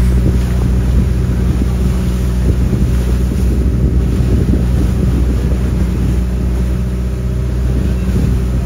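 Engine of an outrigger boat running steadily under way over choppy water, a constant low hum with wind noise on the microphone over it.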